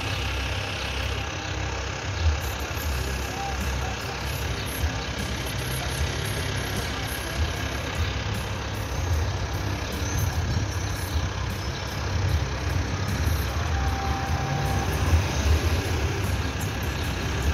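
Low, uneven rumble of an idling vehicle engine with steady street noise.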